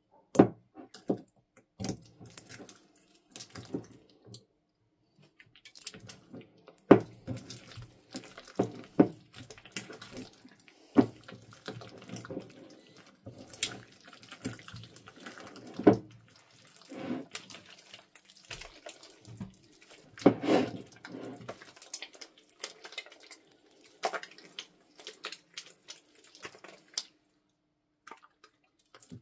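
Slime being kneaded and squeezed by hand as a white cream is worked into it: irregular wet squelches and sticky pops. They come thickly through most of the clip and thin out in the last few seconds.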